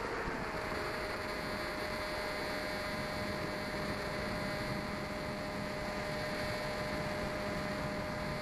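Electric motor and propeller of a small FPV model plane heard from its onboard camera, with a steady whine over a rush of wind. The whine rises slightly in pitch just after the start, then holds steady.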